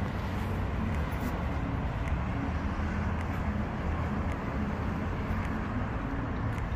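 Steady outdoor background rumble with a faint hiss and no distinct events.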